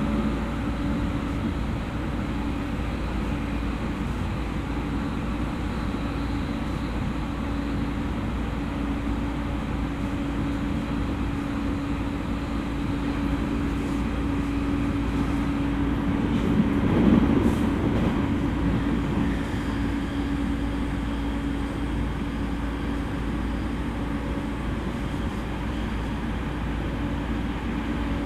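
Interior running sound of an E231 series electric train at speed: a steady rumble of wheels on rail with a constant hum from the traction motors. About halfway through the noise briefly swells louder, then settles back.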